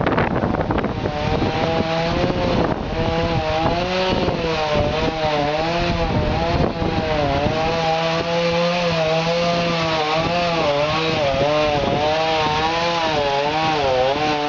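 Chainsaw running and cutting, its engine pitch rising and falling over and over as the chain bites into the wood.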